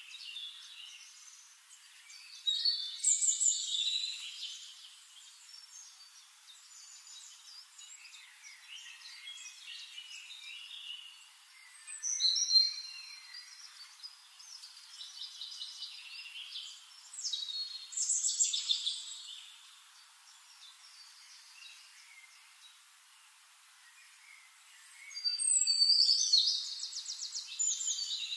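Birds chirping and twittering in scattered bursts, with a longer rapid trill near the end.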